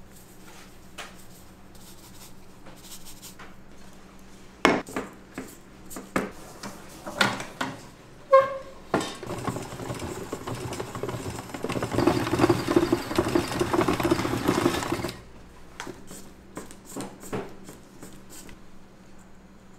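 Kitchen utensils and dishes knocking and clinking during food preparation, with one short ringing metal clink, then about six seconds of dense, steady working noise that grows louder and more rhythmic before stopping suddenly.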